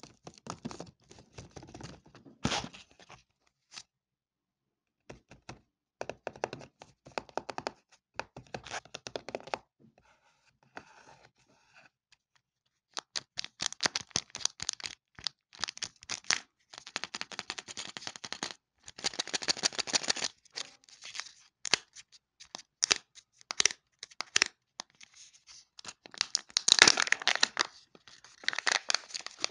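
Foil wrapper of a Kinder Joy egg crinkling and tearing as it is unwrapped by hand, then the foil seal peeled off the plastic egg half. It comes in bursts of crackling with short pauses and is loudest near the end.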